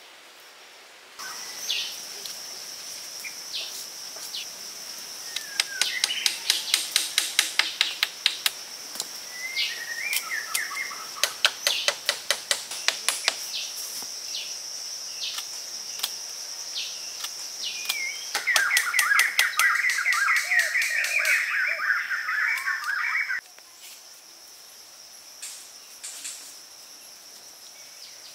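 Forest birds chirping and calling over a steady high insect drone, with two quick runs of sharp clicks and, later, a few seconds of dense warbling song that cuts off suddenly.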